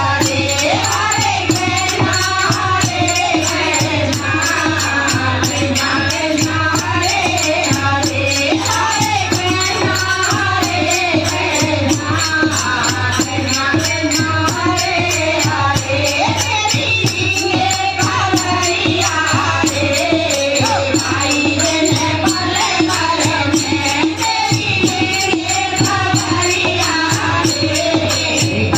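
Devotional Hindu kirtan bhajan: voices singing a wavering melody over hand percussion keeping a fast steady beat.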